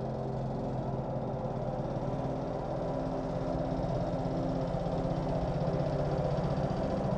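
Dirt bike engine running at a steady speed.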